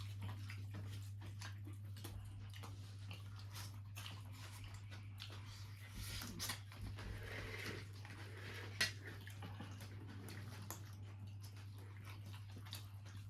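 People eating a meal: soft chewing and small clicks and taps of plates and food, over a steady low hum, with one sharper click about nine seconds in.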